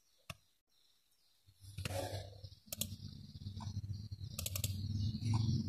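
Computer mouse clicking, single clicks and quick double and triple clicks, while folders are opened in a file browser. A low steady hum comes in about one and a half seconds in.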